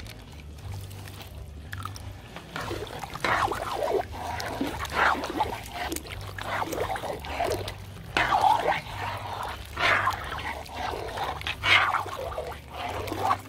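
A ladle stirring thick, creamy seafood soup in a large metal pot, with repeated sloshing strokes about every second or two.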